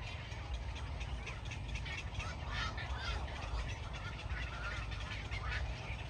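Chorus of many waterbirds calling at once from a crowded nesting colony: short calls overlapping without a break, over a steady low rumble.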